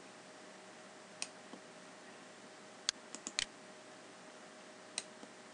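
Computer mouse clicking while selecting edges and placing a dimension in CAD software: a single click about a second in, a quick cluster of four clicks around three seconds, and one more near the end, over a faint steady hum.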